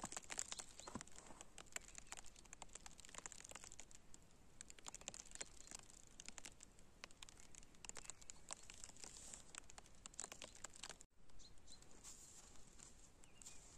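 Faint, dense crackling patter of fine ticks, as of snow falling onto snow-laden pine branches and the snow cover, cutting out for an instant about eleven seconds in.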